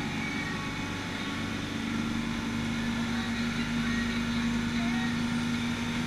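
A sport-fishing boat's engine running steadily under way, a low drone whose main tone grows stronger about two seconds in, over a wash of rushing wake water.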